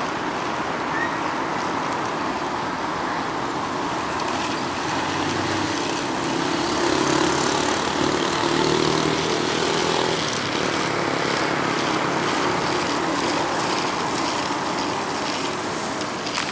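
Jet noise from an Airbus airliner's turbofan engines as it climbs out after takeoff: a steady, broad roar that grows a little louder about halfway through before easing slightly.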